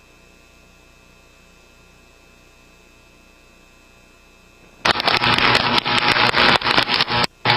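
Quiet electrical mains hum with a thin, steady high whine. About five seconds in, loud crackly music with a dense beat starts suddenly, cutting out for a moment near the end.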